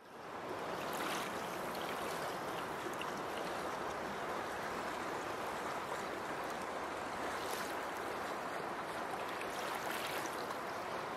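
Fast-flowing river water rushing steadily, fading in over the first half second.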